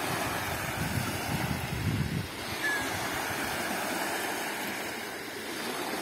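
Small waves of a calm sea lapping and washing on a sandy shore, a steady rush of surf, with some low rumbling in the first two seconds.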